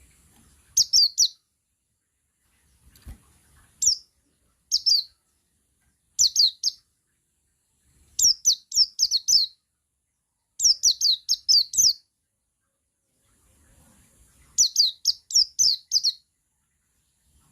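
Male buxtoni white-eye (pleci) singing its 'ngalas' song: short bursts of rapid, high, downward-slurred notes, two to six notes to a burst, repeated every second or two.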